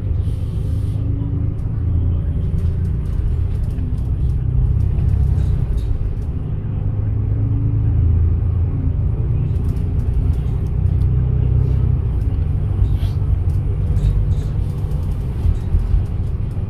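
Double-decker bus riding in traffic, heard from inside: a steady low rumble of engine and road, with faint clicks and rattles from the cabin.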